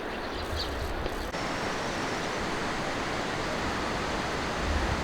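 Steady rushing water noise, growing fuller about a second in, with some low wind rumble on the microphone.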